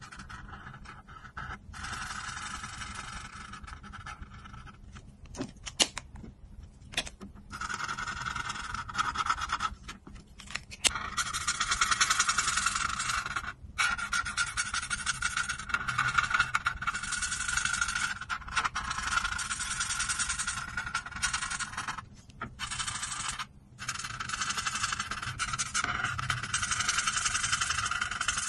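Marker tips scraping across paper in long colouring strokes, a scratchy hiss with a faint squeaky ring, broken by short pauses as the pen lifts. There are a few sharp clicks about six, seven and eleven seconds in.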